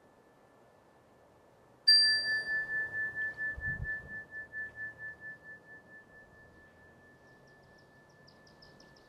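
A small metal bell or bowl struck once about two seconds in, ringing at one high pitch with a pulsing wobble as it fades over about five seconds. It signals the end of Shavasana, the resting pose. A soft low thump follows shortly after the strike, and faint bird chirps come near the end.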